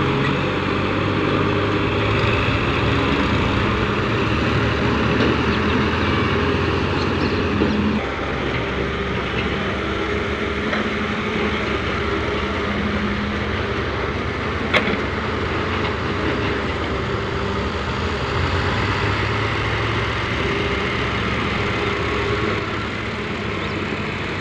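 Diesel engines of farm tractors and a wheeled excavator running steadily, with a slight change in the sound about eight seconds in and one sharp click near the middle.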